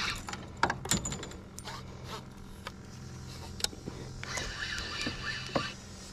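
Sounds on a small fishing boat while a fish is being fought: scattered sharp clicks and knocks over a steady low hum, with a rasping buzz for about a second and a half about four seconds in.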